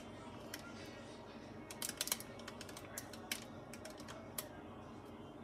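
Scattered light clicks and taps, irregular, with a small cluster about two seconds in: objects being handled on a kitchen counter.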